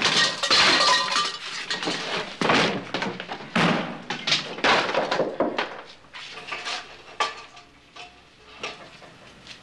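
Glass and crockery being smashed: a rapid run of crashes, shattering and clinking that thins out to scattered clatters and then tails off over the last few seconds.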